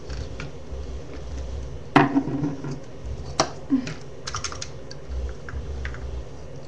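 Screwdriver and plastic pencil sharpener parts being handled while a screw is tightened: scattered light clicks and taps, with two sharper clicks about two and three and a half seconds in.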